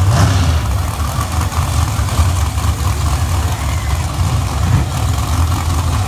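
No-prep drag race cars' engines idling at the starting line, a steady loud low rumble, with a short sharp burst right at the start.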